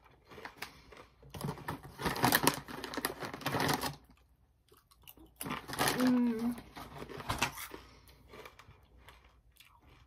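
A foil chip bag crinkling as a hand works in it, in two spells about a second and about five and a half seconds in, mixed with the crunching and chewing of spicy potato chips. A short closed-mouth 'mm' comes about six seconds in.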